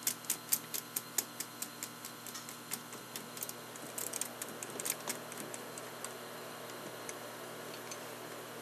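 Cable tie being pulled tight around a metal split mold, its ratchet clicking about three times a second, then slower and fainter clicks that die out about five seconds in.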